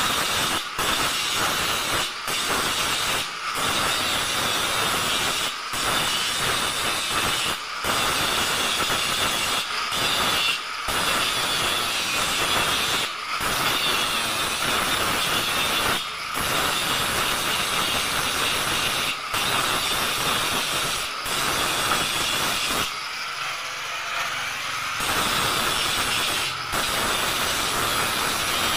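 Handheld angle grinder grinding the welded joints of an iron window grill, a steady high whine and hiss of disc on steel that dips briefly every second or two as the disc is lifted and moved from joint to joint, with a lighter stretch a few seconds before the end.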